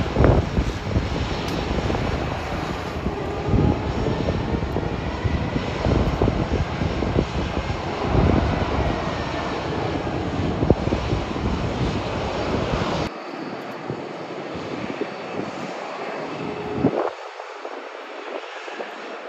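Airliner engine noise as a plane passes: a heavy, steady rush with a deep rumble and a faint whine that bends in pitch. About two-thirds of the way through, the deep rumble cuts off suddenly and the engine noise carries on quieter.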